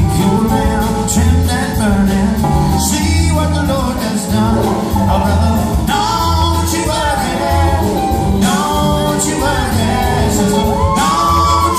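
Live band playing: acoustic guitars, mandolin, electric bass and drums, with a woman singing lead and holding a long note near the end.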